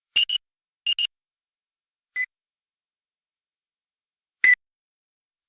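Autoclave end-of-cycle beeper signalling that the sterilising cycle has finished. It gives two quick double beeps, then two single lower-pitched beeps about two seconds apart.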